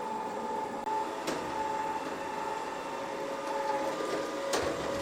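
Ecovacs Deebot M81 Pro robot vacuum running, a steady motor whine over an even hiss. A sharp click about a second in and another near the end.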